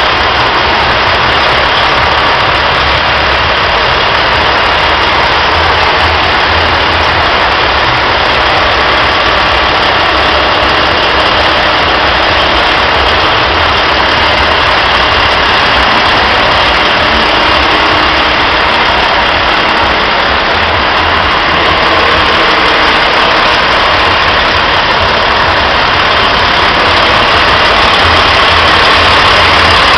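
Steady, loud idling drone of a heavy engine, unchanging throughout.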